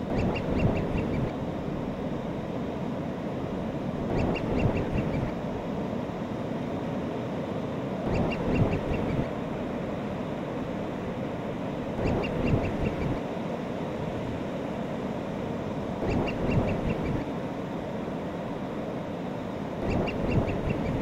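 Seabird calls in short runs of four or five quick, sharp notes, each run with a low swell under it, repeating at a steady four-second interval over a continuous wash of surf-like noise.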